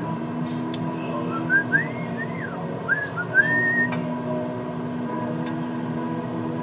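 Whistling: a short run of quick, arching sliding notes, starting about a second and a half in and lasting a couple of seconds.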